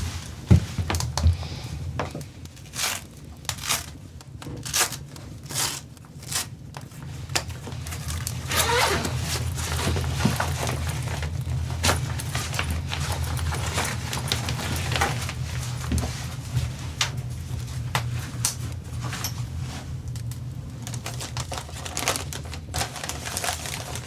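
Irregular clicks, taps and small knocks of objects being handled, with a longer scraping rustle about nine seconds in, over a steady low hum.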